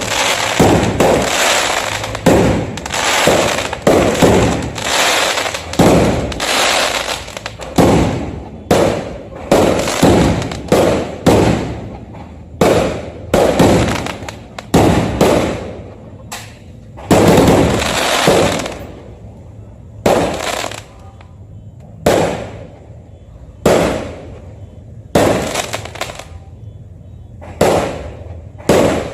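Fireworks going off in a rapid series of bangs, each with a short fading tail. The bangs come thick and fast in the first half, then thin out to roughly one every second or so.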